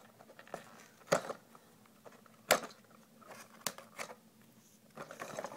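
A cardboard toy box being handled while its sealing tape is worked off: scattered sharp clicks and taps, three louder ones about a second, two and a half and three and a half seconds in, with light rustling near the end.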